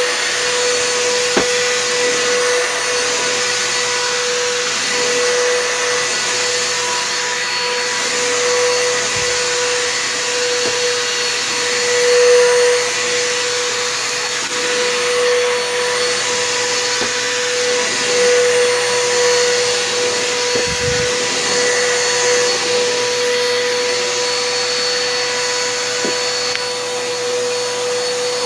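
Bissell PowerForce Helix vacuum cleaner running steadily: a constant motor whine over a rush of air, gently swelling and easing in level.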